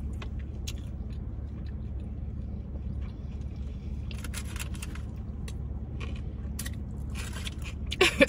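Close-up biting and chewing of crispy fried food, with crackly crunches from about four seconds in that grow louder and peak near the end. A steady low hum from the idling car cabin runs underneath.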